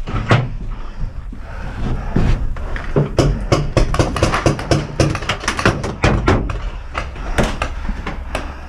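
Irregular knocks and thuds, several a second, as boots and gear bump the boards of a wooden bunker, over a steady low rumble.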